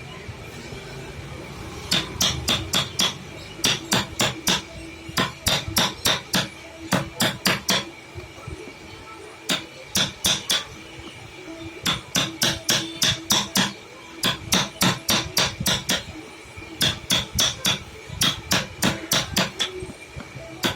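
Hammer tapping in quick runs of several strikes, about four or five a second, with short pauses between the runs, starting about two seconds in; the tapping is typical of hand work on a wooden carving.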